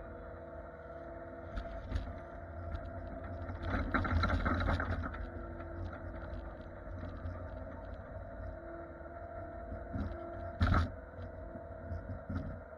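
An engine running steadily at constant speed, with a louder stretch of scraping noise about four seconds in and a short sharp knock toward the end.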